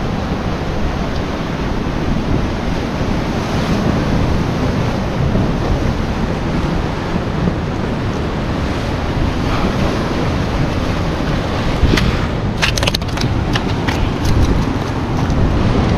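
Sea waves breaking and washing over rocks, with wind buffeting the microphone; a cluster of sharp clicks and knocks comes about twelve seconds in.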